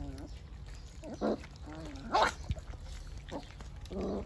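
Belgian Malinois puppies giving a few short yelps and whimpers, the sharpest and loudest about two seconds in.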